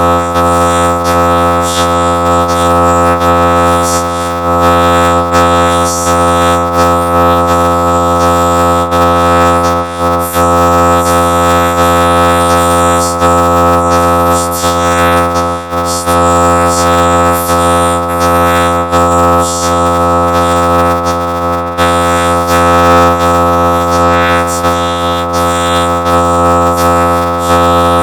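Children's sing-along song heavily processed by an audio effect into a loud, steady synthesizer-like drone of many held tones, with a flickering hiss on top.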